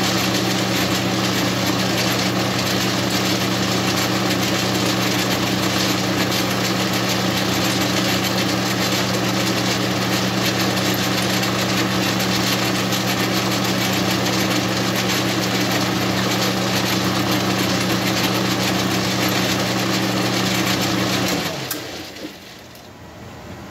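Metal lathe running under power, turning and truing up a threaded insert held on a spark plug in the chuck, with a steady motor hum. About 21 seconds in it is switched off and winds down, the hum dropping away sharply.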